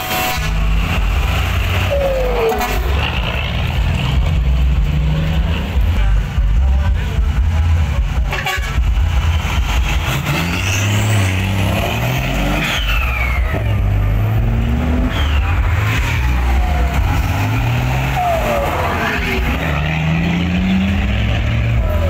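Ten-wheeler diesel trucks pulling away under heavy throttle, blowing black smoke. The engines rev up in repeated rising steps as they go through the gears, with several falling whistling tones between the revs.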